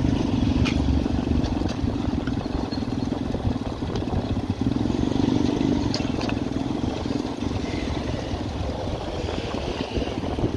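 Motorcycle engine running steadily at low speed, heard up close from the pillion seat, over a haze of street noise.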